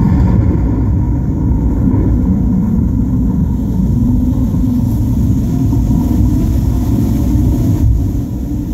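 Loud, deep rumbling drone from the water-and-laser show's soundtrack, played over loudspeakers, with a low pitch that wavers slightly.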